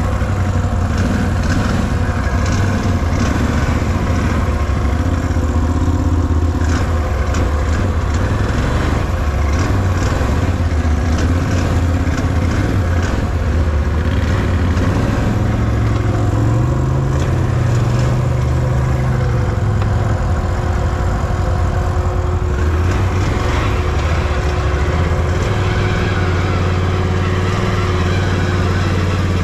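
Can-Am Renegade 1000R ATV's V-twin engine running at low speed, its revs rising for a few seconds a little past the middle and then settling again.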